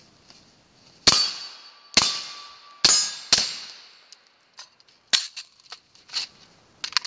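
AR-15 rifle fired four times, the shots roughly a second apart, each trailing off in an echo, with a metallic ring after the first shots. Then comes a run of lighter clicks and rattles of magazine and rifle handling as the rifle is reloaded.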